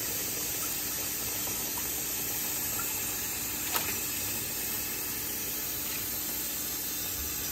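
Kitchen tap running steadily into the sink while chitterlings are washed, with one sharp click about four seconds in.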